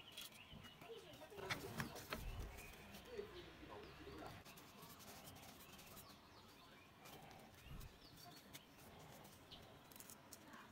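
Near silence with faint clicks of steel tweezers and small coil springs being handled, a few of them around the second and a half mark.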